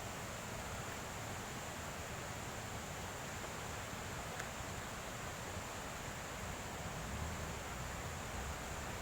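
Faint, steady outdoor background hiss with a thin, high, unchanging tone over it, and a little low rumble near the end.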